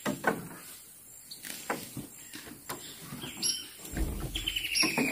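Birds calling: short high chirps repeated at an even pace, then a long call that falls slowly in pitch, starting in the second half. Earlier there are a few light knocks.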